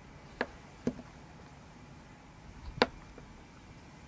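Spring-loaded 6061 aluminium awning clip worked by hand, its latch snapping back with three sharp clicks, two close together near the start and the loudest about three seconds in.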